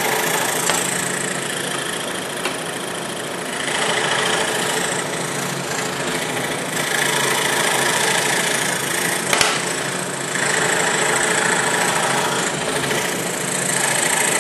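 Entry-level Craftsman scroll saw running, its fine blade cutting through thin wood; the cutting noise swells and eases in stretches as the piece is fed. One sharp click about nine seconds in.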